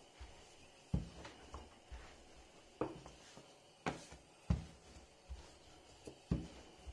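Wooden rolling pin rolling out dough on a floured countertop, with a handful of irregular dull knocks as the pin and the dough are set down and turned.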